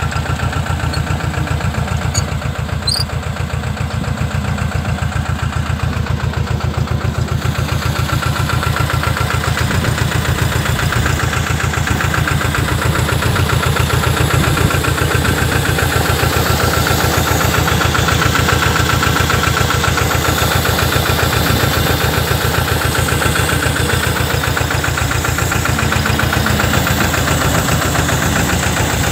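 Powertrac 425 N tractor's diesel engine running steadily with a fast, even beat, while it powers the spraying. A brighter hiss joins the engine about seven seconds in and stays.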